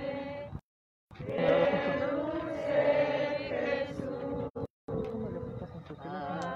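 Many voices of a procession crowd singing a religious hymn together in long held notes. The sound cuts out completely for about half a second shortly after the start, and twice more very briefly about four and a half seconds in.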